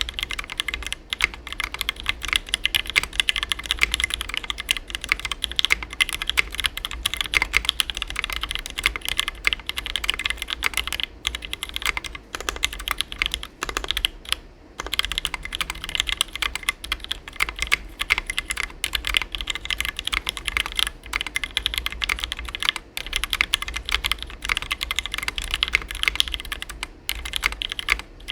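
Fast, continuous typing on a custom 60% mechanical keyboard: lubed and filmed Gateron Black Ink linear switches on a brass plate, in a foam-filled case, with EPBT ABS doubleshot keycaps. The typing breaks off briefly about halfway through.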